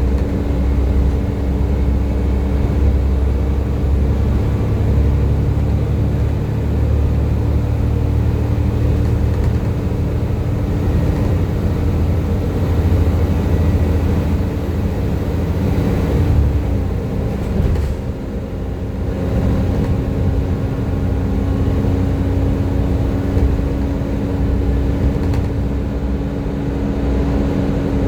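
Volvo B7TL bus's Volvo D7C diesel engine pulling under way, with the steady high-pitched whine known to enthusiasts as the 'Hoover' sound over the low engine drone. About two-thirds of the way through, the drone eases off briefly and then picks up again.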